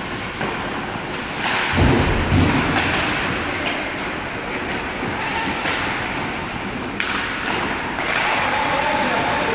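Ice hockey skates scraping the ice of an indoor rink, with sticks and pucks clacking; a heavy thud about two seconds in and a sharp clack about seven seconds in.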